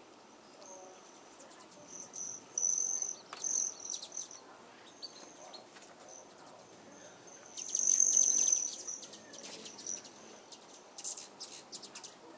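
Insects trilling in a high, steady tone that swells loud twice, about two seconds in and again about eight seconds in, with a run of short sharp chirps near the end.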